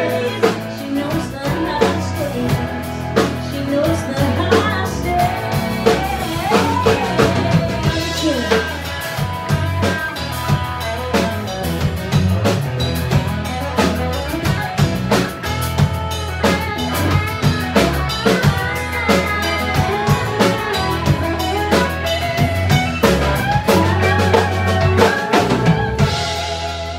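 A live country-pop band playing, with acoustic and electric guitars, electric bass and a drum kit keeping a steady beat.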